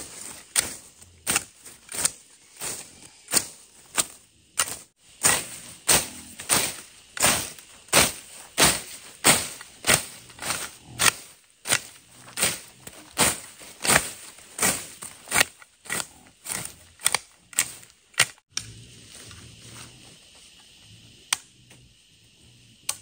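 A long-handled blade slashing through weeds and leafy ground cover in quick, regular strokes, a sharp swishing cut about one and a half times a second. The strokes stop about eighteen seconds in.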